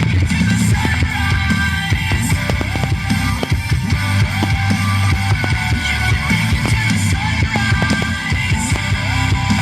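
Loud rock music with electric guitar, with irregular sharp cracks over it.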